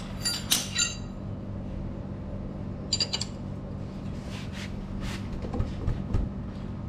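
Metal hand tools clinking: a few sharp, ringing clinks in the first second and again about three seconds in, then lighter ticks as a combination spanner is fitted to a bolt. A steady low hum runs underneath.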